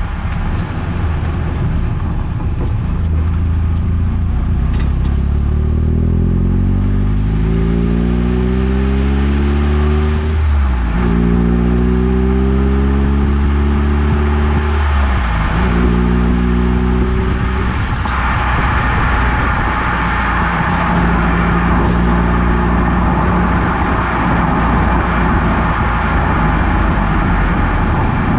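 Eunos Roadster (Mazda MX-5) driving and accelerating: the engine note climbs, drops at an upshift about ten seconds in, climbs again and drops at a second upshift about fifteen seconds in. It then holds a steady cruise while road and tyre noise grows louder.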